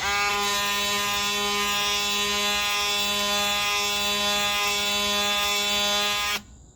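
Angle grinder with a smoother finishing pad running on bare metal, smoothing the freshly ground spot: a steady, high whine that holds one pitch for about six seconds and then cuts off suddenly.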